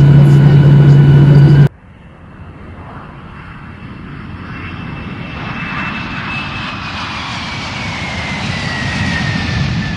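A loud, steady droning hum cuts off abruptly under two seconds in. Jet airliner engine noise follows and swells steadily, with a whine that holds its pitch and then slowly falls.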